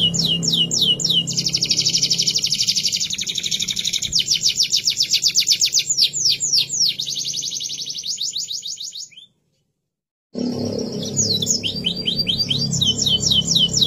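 Domestic canary singing: fast, rolling trills of rapidly repeated high notes, the pace changing from one tour to the next. The song breaks off into about a second of silence some two-thirds through, then resumes.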